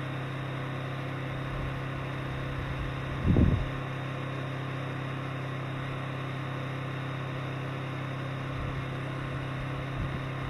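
A steady low mechanical hum over an even hiss, unchanging throughout, with a brief low thump about three and a half seconds in.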